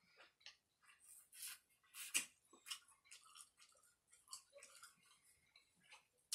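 Quiet, wet eating sounds close to the microphone: a string of short lip smacks and chewing clicks, with the loudest smack about two seconds in.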